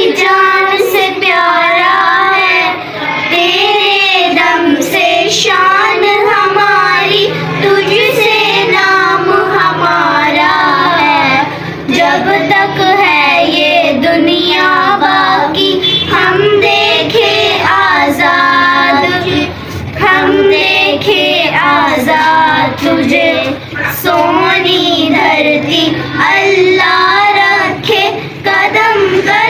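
Children singing a song, the voices running on without a break.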